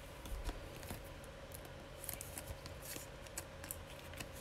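Glossy Donruss Optic trading cards being flipped through by hand: faint, light, irregular clicks and scrapes of card stock sliding against card stock.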